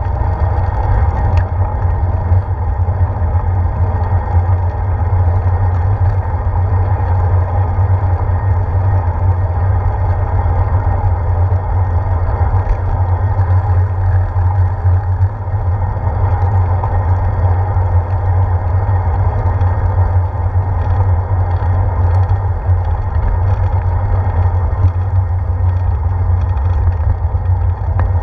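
Steady wind and road rumble on a handlebar-mounted GoPro Hero 4 as a bicycle rides along paved road and parking lot, loud and unbroken, dominated by a deep rumble.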